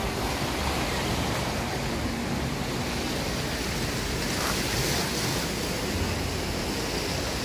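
Steady rush of wind buffeting the microphone over surf noise at the beach.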